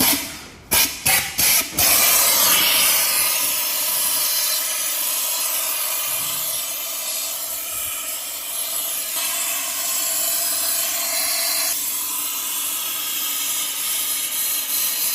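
Compressed air hissing from a blow gun, likely used to clean out CVT belt dust: several short blasts, then one long continuous blast carrying a faint whistling tone.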